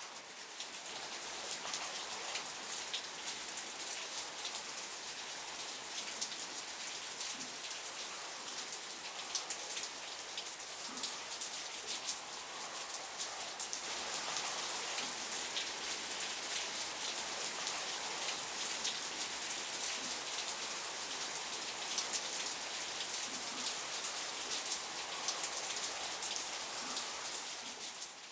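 Heavy rain coming down steadily, a dense hiss full of the sharp ticks of individual drops striking close by, a little louder from about halfway.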